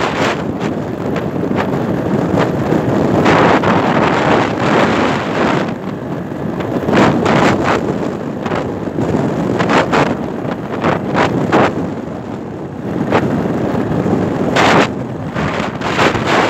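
Wind rushing and buffeting over the microphone of a camera riding on a moving Lambretta scooter, in uneven surges and thumps.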